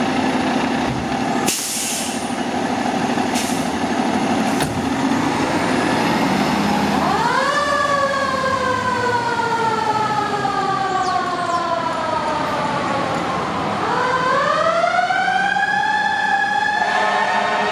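Fire engine's diesel engine idling, with a few short air hisses in the first five seconds. About seven seconds in, its Federal Signal Model 28 mechanical siren winds up sharply, slowly coasts down in pitch, then winds up again and holds a high wail near the end.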